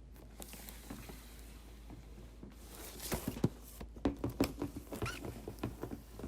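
Toy packaging being handled: a run of small irregular clicks, taps and crinkles, thicker and louder from about halfway through, with a brief hiss about three seconds in.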